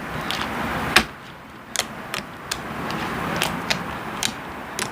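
Homemade glue-and-borax slime being handled and stretched, giving off irregular sharp clicks and pops over a soft squishing, the loudest pop about a second in.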